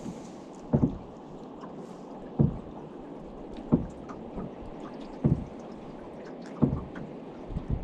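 Rhythmic splashing and sloshing of water, a short stroke about every second and a half, over a steady background hiss.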